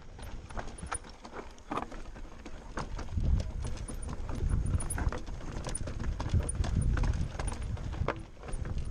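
Mountain bike rolling down a rocky trail: tyres and frame knocking and clattering over loose stones in an irregular patter of sharp clicks, over a low rumble of ground and wind noise on the bike-mounted camera. The rumble grows louder about three seconds in.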